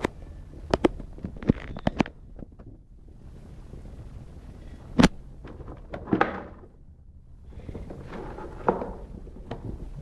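Cardboard retail box of a USB mini fridge being handled and turned over: a quick run of taps and clicks in the first two seconds, one sharp knock about five seconds in, then sliding, scraping swishes of the cardboard, over a low steady rumble.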